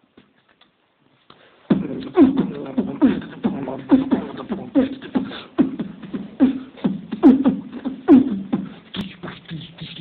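A person beatboxing: after a short quiet start, a steady beat of vocal kick sounds, about two a second, each dropping in pitch. A low hum joins under the beat near the end.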